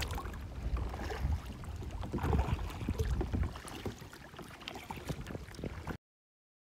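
Water splashing and dripping around a kayak as it is paddled, over a low wind rumble on the microphone. The sound cuts off abruptly about six seconds in.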